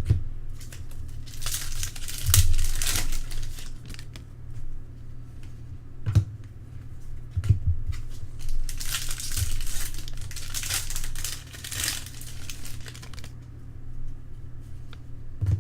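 Trading card pack wrappers being torn open and crinkled in two long spells of rustling, with a few sharp clicks between them as cards are handled. A steady low hum runs underneath.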